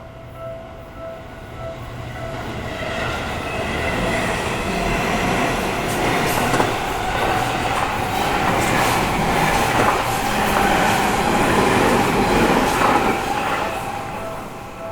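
Seibu Shinjuku Line electric train passing over a level crossing: the train noise builds over a couple of seconds, stays loud with a few sharp wheel clicks, then fades near the end. The crossing's pulsing warning bell rings at the start and again near the end, mostly covered while the train goes by.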